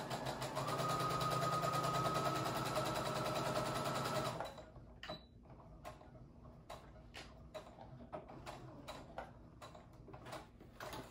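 Brother electric sewing machine running steadily, stitching a seam, and stopping suddenly after about four and a half seconds. A scatter of light clicks and taps follows.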